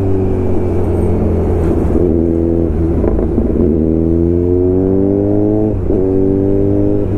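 Kawasaki Z900's inline-four engine under way: the revs hold, then climb steadily for about two seconds and drop sharply at a gear change about six seconds in.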